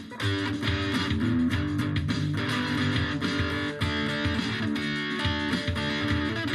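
Guitar-led background music with a bass line and a steady beat.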